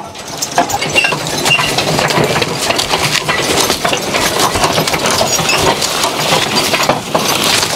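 Three-horse team pulling a riding sulky plow through sod: the trace chains and iron plow parts clink and rattle without a break as the moldboard turns the furrow.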